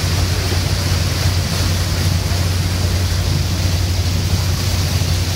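Steady low drone of a river cruise boat's engine, with the rush of its churning wake.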